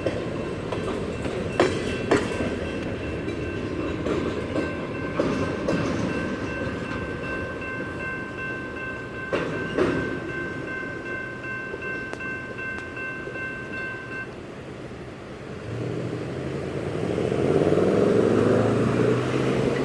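The last cars of a freight train rolling past, wheels rumbling and clacking over rail joints, with a few sharp knocks and steady high ringing tones that stop about two-thirds of the way through. Near the end a road vehicle's engine rises in pitch and grows louder.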